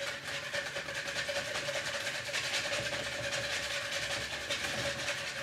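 Whisk beating olive oil into chimichurri dressing in a mixing bowl: a fast, even clatter of the wires against the bowl, with a steady hum underneath.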